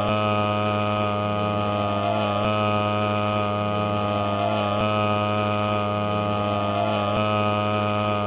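A heavily processed, looping audio edit: a steady droning hum of many held tones, with a slight wobble that repeats about every two and a half seconds.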